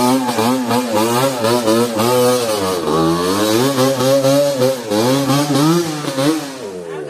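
Yamaha WR155 trail motorcycle's engine revving up and down over and over as it climbs a slippery mud track, the throttle worked hard for grip. The note dips about three seconds in, then picks up again, and fades near the end as the bike pulls away.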